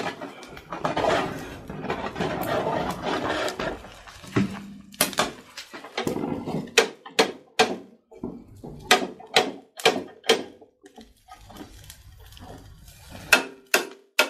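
Sharp metallic clinks and taps of a metal utensil knocking against a charcoal barbecue grill, coming one after another through the second half.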